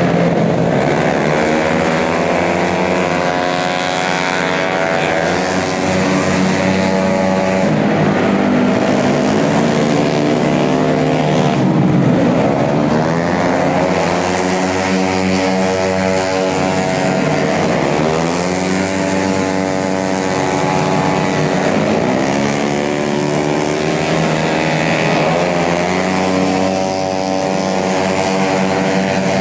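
Several racing 150cc automatic scooter engines running hard at high revs, their pitch sweeping down again and again as bikes go past.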